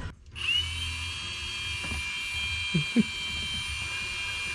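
Cordless drill motor spinning up and then running at a steady whine, twisting the ends of stranded wires together.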